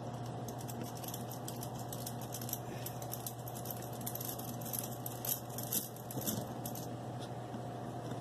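Small metal screwdriver working the motor screws out of a Team Associated CR12's plastic transmission housing: light, irregular metallic ticks and rattles, over a steady low hum.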